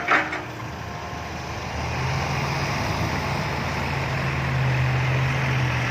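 Heavy diesel engine running steadily, growing louder about two seconds in and then holding an even hum.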